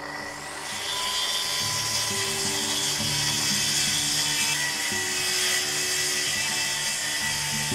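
Festool TS 55 plunge-cut track saw running and cutting along its guide rail through a rough board, a steady high whine and hiss that grows louder over the first second and then holds. Background music plays under it.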